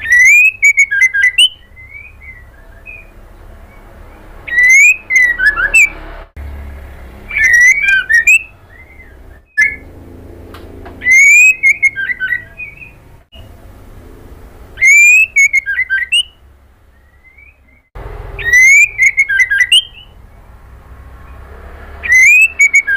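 White-rumped shama (murai batu) calling: loud, short phrases of clear whistled notes that slur up and down, each about a second long and repeated every three to four seconds, with a low steady hum between them.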